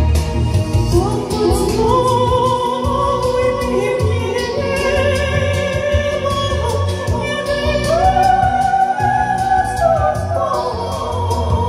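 A woman singing long, held notes with vibrato, the melody stepping upward, over a backing track with a steady low beat.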